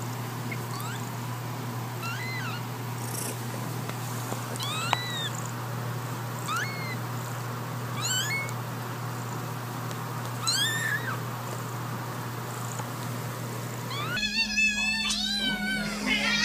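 A newborn kitten mewing over and over: short, thin, high squeaks about one every second, over a steady low hum. Near the end several cats meow loudly at once, crowding for food.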